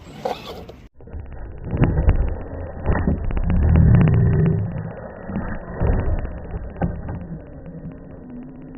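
Vehicle motor running and revving: a low rumble that swells to its loudest about four seconds in, then eases off.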